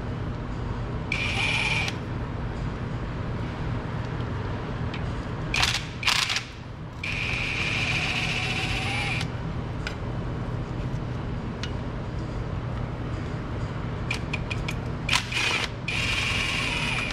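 Cordless electric ratchet with a universal-joint attachment whirring in three short runs, backing out the 10 mm bolts of the lower oil pan. A few sharp metallic clicks and knocks fall between the runs, over a steady low hum.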